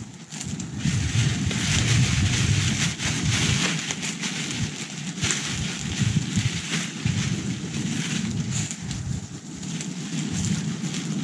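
Gusty wind rumbling on the microphone over the steady hiss and scattered crackles of a charcoal grill.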